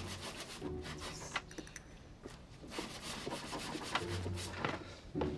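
Electric sander working on wood in uneven spurts, scraping and clattering, with short bursts of motor hum near the start and about four seconds in; the sander is faulty, bad enough to go back under warranty.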